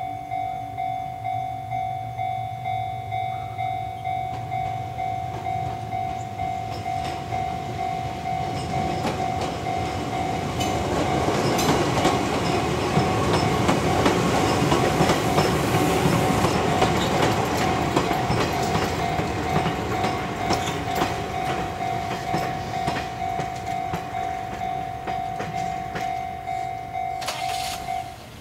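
A train passing, swelling to its loudest about midway, with a ringing tone that pulses about twice a second and cuts off just before the end.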